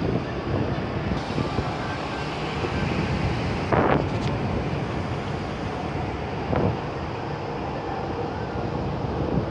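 Wind buffeting the microphone on an open deck: a steady rushing noise with a low rumble, and two louder gusts, the stronger about four seconds in and a smaller one near seven seconds.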